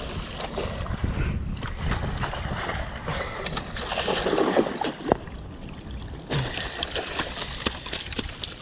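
A hooked carp splashing at the water's surface close to the bank while it is brought in and scooped into a landing net, with a louder burst of splashing about four seconds in.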